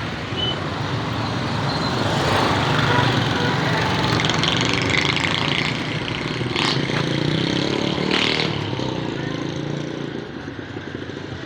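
Busy street traffic: vehicle engines passing steadily, mixed with background voices, with two short sharp sounds about six and a half and eight seconds in.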